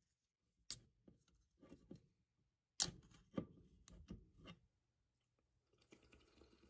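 Slim aluminium drink can being opened: light clicks at the pull tab, a sharp pop about three seconds in as the tab breaks the seal, then a few smaller clicks. Near the end come soft drinking sounds as it is drunk.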